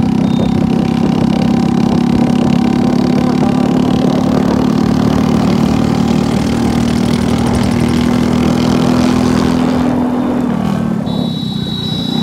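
A vehicle engine running steadily at a constant speed. Its note changes and drops a little near the end, when a brief high tone is also heard.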